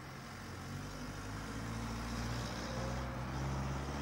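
Tow truck's engine running at low speed as it hauls a car, a steady hum that grows slightly louder.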